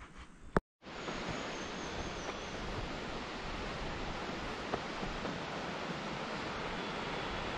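A short click and a brief dropout about half a second in, then a steady, even rushing noise.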